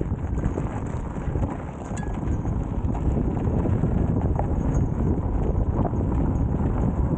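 A Begode Extreme electric unicycle's tyre rolling over loose gravel, a continuous crunching and rattling, with wind buffeting the microphone. It gets louder about three seconds in.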